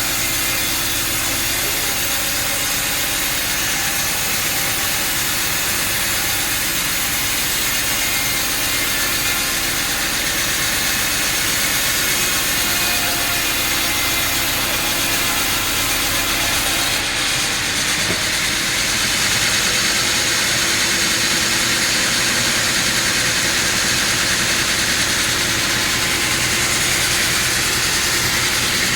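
Sawmill machinery running steadily, a continuous mechanical drone with a hiss over it; the sound changes and gets a little louder about 18 seconds in.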